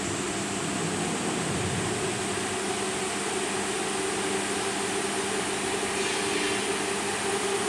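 The heat recovery ventilator's centrifugal fans run at their second speed setting, giving a steady rush of air with a hum. The low hum briefly shifts in pitch between one and two seconds in.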